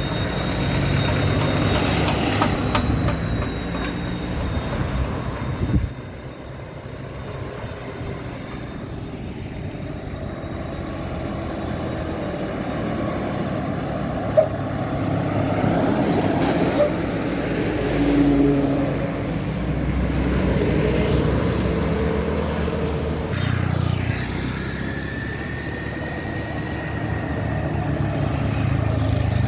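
Roadside traffic of buses and trucks driving past, their engines making a continuous low drone, with a sudden drop in level about six seconds in.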